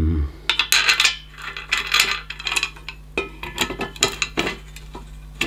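Steel tube and fittings of a home exercise machine being handled and worked together by hand: irregular metal clicks, knocks and short scrapes.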